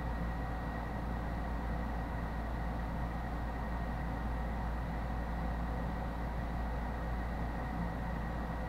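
Steady low hum with a hiss and a faint high whine, unchanging throughout, with no distinct clicks or other events.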